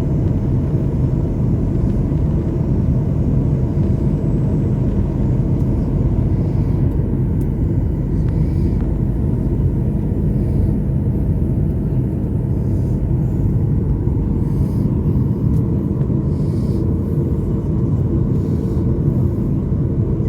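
Airliner cabin noise: the steady low rumble of the jet engines and airflow heard from inside the passenger cabin, with a faint steady hum.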